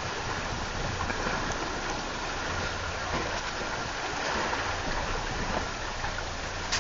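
Steady rush of water along the hulls of a Gemini sailing catamaran moving under sail at about 4 knots, mixed with breeze.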